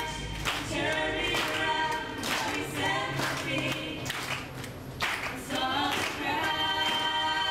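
Background music: a song carried by group, choir-like singing.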